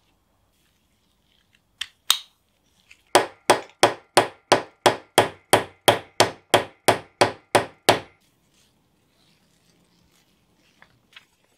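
A ball-peen hammer strikes the end of a steel pin on a wooden drill handle, peening it over to rivet the handle to its crank arm. There are two light taps first, then a steady run of about fifteen sharp metal-on-metal blows, about three a second, each with a short ring.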